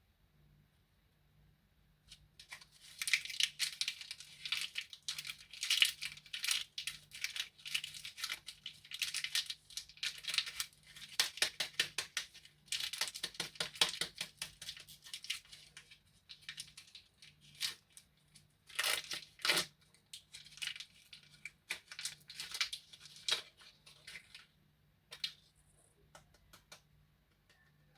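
Plastic candy wrapper being crinkled and torn open. The crackling starts about two seconds in, runs fast and dense, and thins to a few last crackles near the end.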